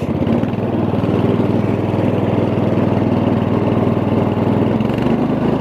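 Murray riding lawn mower's engine running steadily as the mower drives slowly. The engine note shifts slightly near the end.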